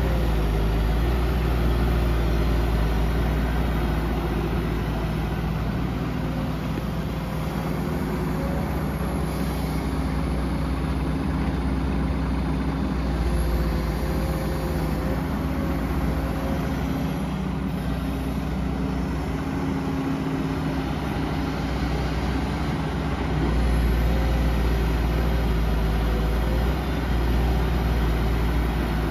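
Komatsu PC200 excavator's diesel engine running steadily while it digs and loads soil, with a deep drone that grows louder for a few seconds near the end.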